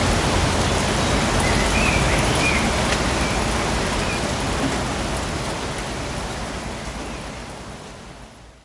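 Steady rain falling in a suburban forest, a dense even hiss, fading out gradually over the last few seconds.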